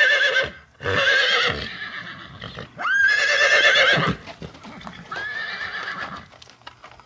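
A horse whinnying several times in a row, each call high-pitched and quavering, one starting with a sharp upward sweep.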